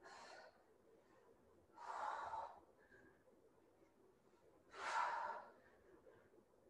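A woman breathing hard with the effort of dumbbell sit-ups: three short breaths about three seconds apart, the first faint.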